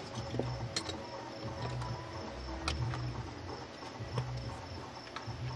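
Crickets chirping in a steady night chorus, under a low throb that swells about once a second and a few scattered clicks and knocks.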